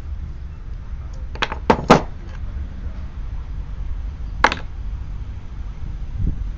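Sharp metallic clicks and clinks of small parts and tools being handled: three in quick succession, another a few seconds later, and a duller knock near the end. Under them runs the steady low rumble of a train passing slowly.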